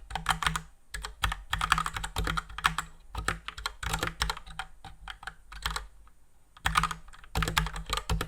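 Typing on a Cooler Master CK530 tenkeyless mechanical keyboard with Gateron Red linear switches: rapid bursts of key clacks, with a pause of about a second and a half a little past the middle before the typing picks up again.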